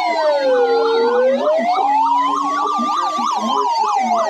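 Electronic emergency-vehicle sirens sounding together: a slow wail rising and falling in pitch, overlaid with a fast yelp that sweeps up and down about four times a second.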